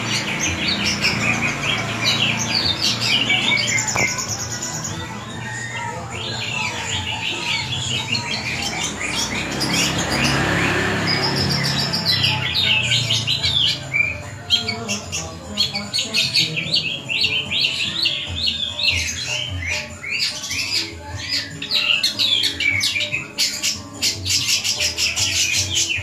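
Caged long-tailed shrike (cendet) singing a long, varied song of rapid chirps and trills, changing phrase every second or two, the mimicking song it is kept for.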